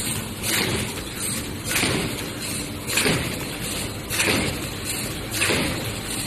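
Square paper cup forming machine running through its cycle, with a noisy stroke about every second and a quarter over a steady mechanical din.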